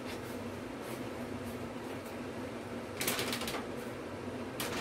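Steady hum and whoosh of room fans that pull the air out and blow it outside, with a brief rustle about three seconds in and another near the end.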